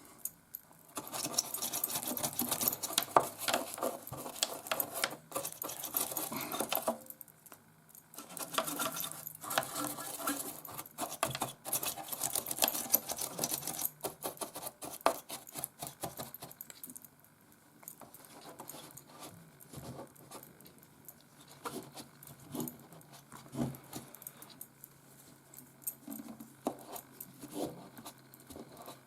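Scrubbing the plastic battery compartment of a radio with isopropyl alcohol to clean out battery corrosion: runs of fast scratchy rubbing, then from about 17 seconds in, lighter, irregular scratching and small taps.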